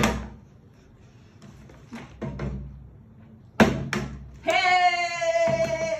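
A plastic water bottle flipped onto a glass tabletop: a sharp knock as it lands, then about three and a half seconds later a louder double knock on the next flip. Right after, a girl's voice lets out a long, held high cry that sags a little in pitch.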